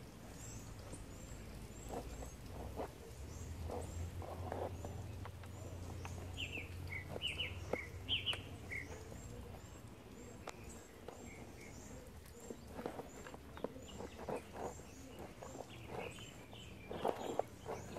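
Small birds calling outdoors: a quick, high chirp repeats over and over, with a louder run of calls about six to nine seconds in and again near the end, over a faint low hum and scattered light knocks and rustles.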